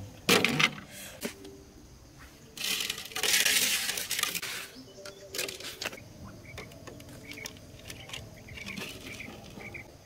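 Clicks and crinkling rustles as a cut plastic water jug is handled and set as a trap, loudest in a rustling burst of about two seconds around three seconds in. From about the middle, faint, evenly repeated high chirps begin.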